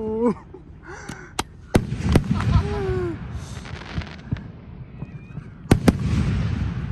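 Aerial fireworks shells bursting: a run of sharp bangs about a second and a half to two seconds in, then a close pair near six seconds.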